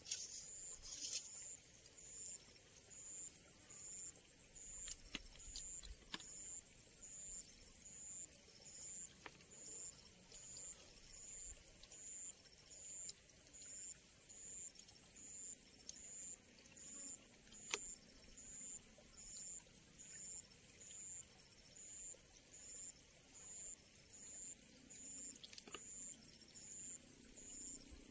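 Insects calling in a steady, high-pitched chorus with a regular pulsing beat, and a few faint clicks now and then.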